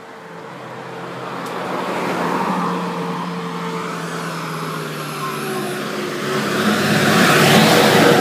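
A motor vehicle's engine running with road noise, growing steadily louder and loudest near the end.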